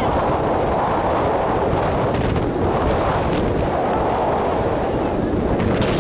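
Wind buffeting the microphone: a loud, steady rumbling rush.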